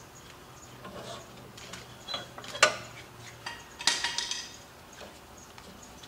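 Drive belts being pried off the pulley of a Concrete Genie concrete grinder by hand, with scattered metal knocks and clinks. A sharp knock about two and a half seconds in is the loudest, followed a second later by a short clatter with a brief metallic ring. The belts are still tight because the motor was not loosened enough.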